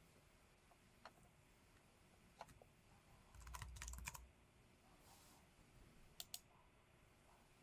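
Faint keystrokes on a computer keyboard: a few scattered taps, a quick run of keys about three and a half seconds in, then two sharp clicks a little after six seconds.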